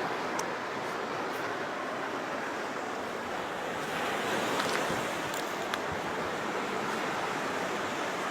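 Steady rushing of sea surf, with wind buffeting the microphone.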